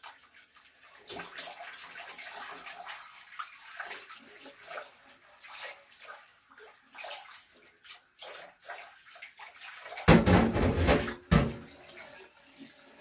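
Dishes washed by hand under a running tap in a stainless steel sink: water splashing, with scrubbing and short knocks of a glass dish. About ten seconds in, a loud burst of noise lasts just over a second and is the loudest sound.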